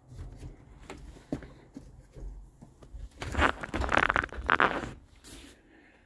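Rustling and scraping from the handheld camera and clothing, with footsteps on the bus floor, loudest about three to five seconds in.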